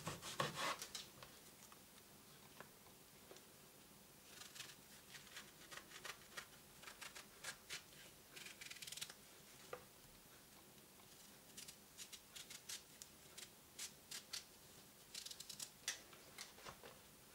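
Kitchen knife slicing a zucchini lengthwise into thin strips on a wooden board: faint, scattered scraping strokes, some in quick clusters.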